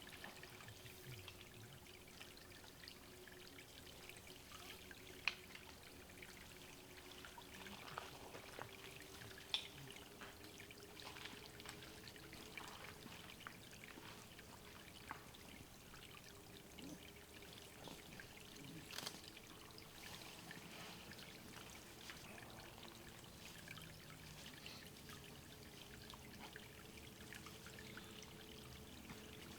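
Water trickling faintly into a small woodland pool, with small ticks and drips and two sharp clicks, about five and nine seconds in.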